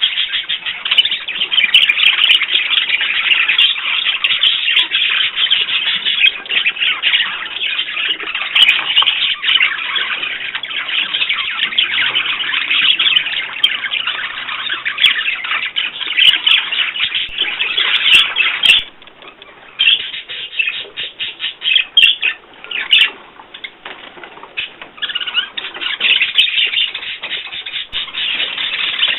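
Many small cage birds chirping and chattering densely. About two-thirds of the way through, the chatter thins into separate chirps with short pauses.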